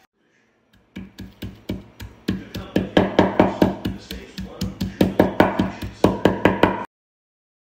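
A black stone pestle rapidly pounding garlic cloves on a wooden cutting board: a fast run of knocks, about five a second, that cuts off abruptly near the end.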